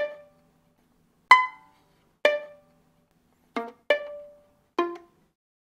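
Violin plucked pizzicato: six single notes with short silences between them, each one dying away quickly.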